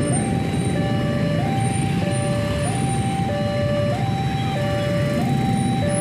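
Railway level-crossing warning alarm sounding its two-tone electronic signal: a high and a low tone alternating evenly, each about two-thirds of a second long, warning that a train is approaching. A steady low rumble runs underneath.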